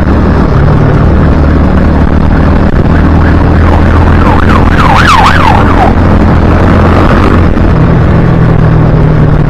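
Heavy wind noise on a helmet-mounted action camera's homemade microphone at high motorcycle speed, loud and steady over the low hum of the engine; the wind is strong enough to swamp the recording. In the middle a siren-like tone yelps rapidly up and down for a couple of seconds.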